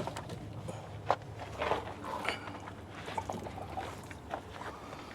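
A few faint, scattered knocks and scrapes of metal parts being handled as a truck's engine-mounted air compressor is worked loose and lifted out, over a low steady hum.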